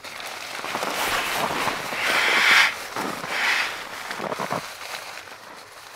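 Nylon fabric rustling and swishing as a stuff sack is handled and gear is pulled from it, in uneven bursts, the loudest about two seconds in.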